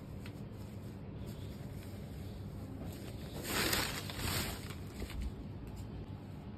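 Cloth rustling as a cotton saree is handled, over a steady low rumble. A louder swish of rustling comes about three and a half seconds in, with a softer one just after.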